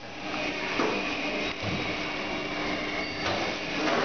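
Steady hum of a plastic welding machine, with rustling of clear plastic film and a few light clicks from handled plastic parts.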